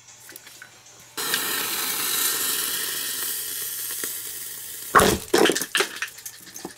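Xplode 'Glückspilz' table firework: its fuse burns with a steady hiss of sparks for about four seconds, then the firework goes off with a sharp pop about five seconds in, followed by a few lighter knocks and rattles.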